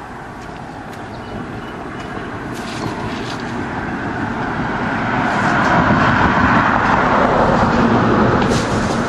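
A vehicle passing, its rushing noise swelling to a peak about six seconds in and then easing a little.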